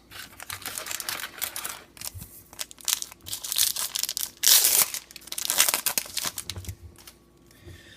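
Trading card pack wrapper being torn open and crinkled: a run of crackly rustles, loudest about halfway through, dying away near the end.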